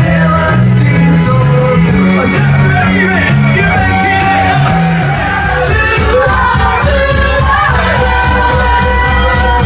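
Loud party music with a steady beat played over a sound system, with a crowd singing and shouting along.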